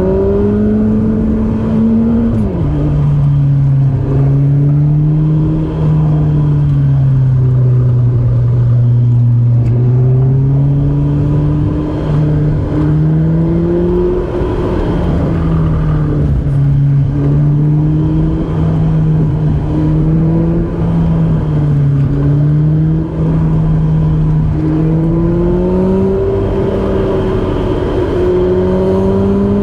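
Honda CR-V's engine running under load while driving, its revs rising and falling steadily through the bends, with a sudden drop in pitch about two seconds in like an upshift.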